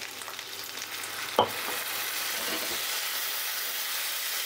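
Onions and ground spices sizzling in hot oil in a non-stick pan as a little water hits the oil, the sizzle growing a little louder about a second in, while a spatula stirs the masala. A single knock about a second and a half in.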